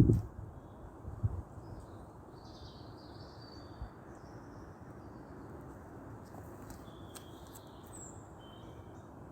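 Scattered faint bird chirps and short calls over a steady low background hiss, with a brief louder rustle or knock in the first second and a half.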